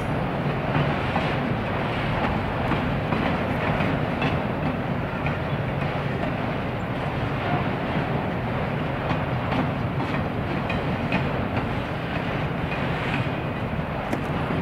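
Train rolling past: a steady rumble of wheels on the rails, with light, irregular clicks.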